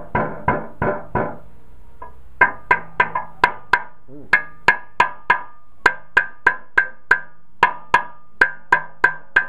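A mallet tapping a cast-iron main bearing cap down into its seat in a Mercedes-Benz 190SL engine block, testing a spare cap for fit. After a short pause about two seconds in, the strikes come steadily at about three a second, each a sharp knock with a brief metallic ring.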